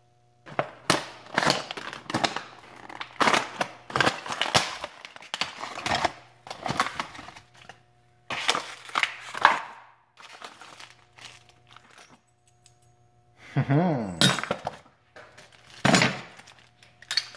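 Stiff clear plastic clamshell packaging crackling and crinkling in irregular bursts as it is opened, then a plastic bag rustling as the brass doorknob and its parts are handled and clink together.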